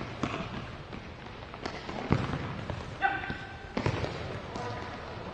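Futsal ball being kicked and bouncing on an indoor court: a handful of separate thuds spread irregularly through a few seconds.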